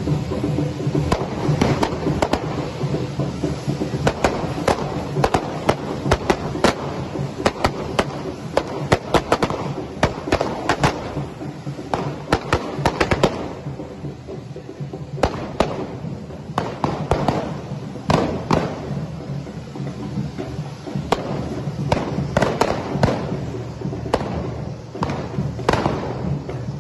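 Correfoc fireworks: spark-spraying fountains (carretilles) hissing, with many sharp firecracker bangs in quick irregular runs. The bangs thin out for a moment about halfway through, then pick up again.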